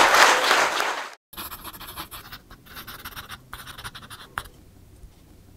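Audience applause dies away over the first second. After a brief silent cut comes a faint, scratchy pencil-scribbling sound effect, with one sharper click a little after four seconds in.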